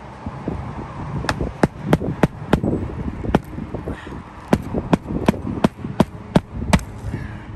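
Hammer driving roofing nails into asphalt shingles: a string of sharp, quick strikes, about three a second, with a short pause in the middle.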